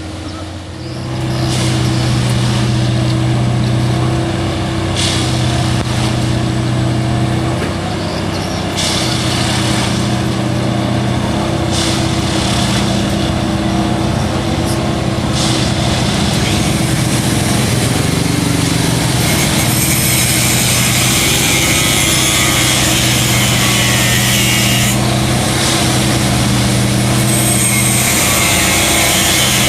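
Diesel engine of a railway track maintenance machine running steadily, with a short sharp clack or hiss about every three to four seconds. From about two-thirds of the way in, a steady hiss joins it, broken briefly near the end.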